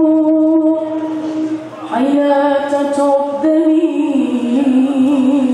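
A boy singing a nasheed unaccompanied into a microphone, holding long sustained notes. A new phrase begins about two seconds in, and the last note wavers with melismatic ornaments.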